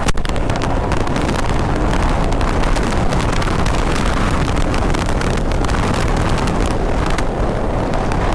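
Wind buffeting the microphone on a moving motorcycle, a loud steady rush with crackles, over engine and road noise.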